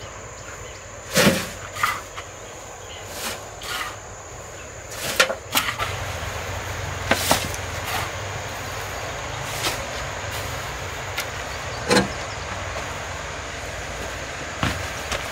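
Shovel scooping wood shavings and tipping them into a wheelbarrow: short scrapes and knocks every couple of seconds over a steady background noise.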